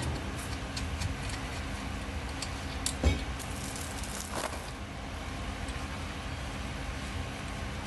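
Metal hardware being handled on a steel transmission jack adapter: small scattered clicks as a bolt and nut are worked on its bracket, and a sharp clink about three seconds in as a steel chain is picked up, over a steady low hum.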